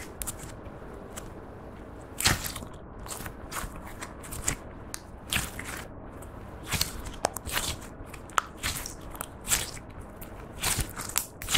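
Clear slime being kneaded and stretched by hand, giving off irregular sticky clicks, pops and crackles, several a second, with a few louder pops.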